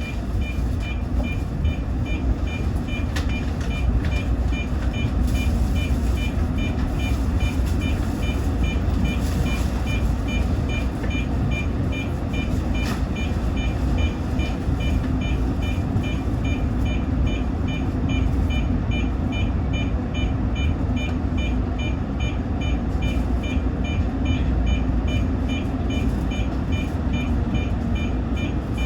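Short, high electronic beeps repeating evenly over a steady low rumble, as the electric train stands at its terminus.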